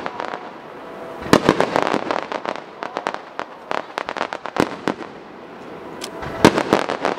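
Aerial firework shells bursting: quick clusters of sharp bangs about a second in and again near the end, with scattered single reports between them.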